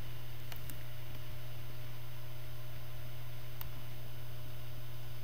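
Steady electrical mains hum with background hiss on the recording, with two faint clicks.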